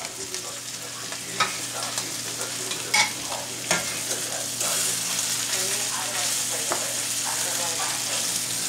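Floured patties sizzling in hot oil in a stainless steel skillet, with a spatula pressing and scraping against the pan and a few sharp clicks of metal on the pan. The sizzle gets louder about halfway through.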